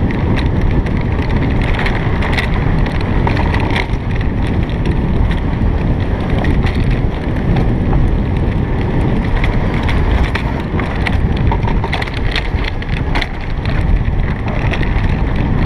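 Alpine coaster sled running fast down its steel rail track: a steady low rumble from the wheels on the rails, wind buffeting the microphone, and scattered sharp clicks and rattles.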